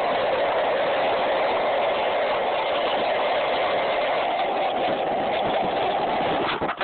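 Skateboard wheels rolling on rough asphalt: a steady, loud rolling rumble, broken by a brief dip near the end.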